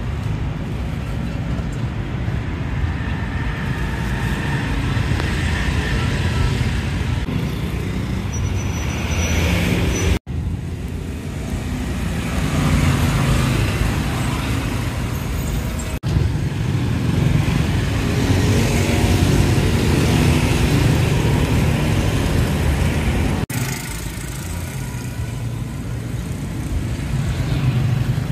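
Roadside traffic: cars and motorbikes running past, a steady mix of engine rumble and road noise, broken three times by abrupt cuts.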